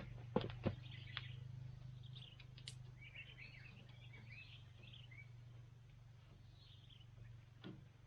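Faint birds chirping in short, quick calls, with a few sharp knocks in the first second and a low hum that fades away.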